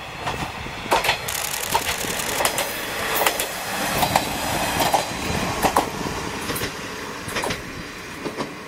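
Diesel railcar KiHa 20 1303 of the Isumi Railway running past, its wheels clacking over the rail joints in a quick irregular run of clicks. The clacking is loudest in the middle and fades near the end.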